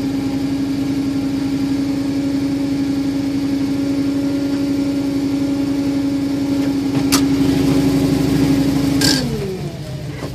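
A truck engine runs steadily with a constant whine, then slows and falls in pitch about nine seconds in. A couple of sharp clicks come just before it slows.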